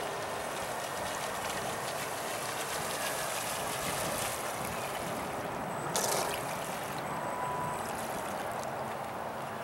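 Steady rushing hiss of choppy water as an electric RC mono-hull boat, converted from gas, runs in slowly toward the bank; the boat itself is quiet. A short sharp knock about six seconds in.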